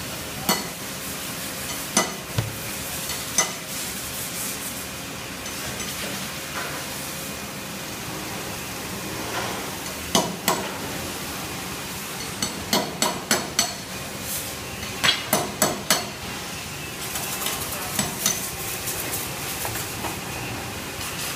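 Sharp metallic clicks and knocks, single ones and quick runs of four or five, as steel glazing strips are handled and fitted over the glass of a steel window frame, over a steady background hiss.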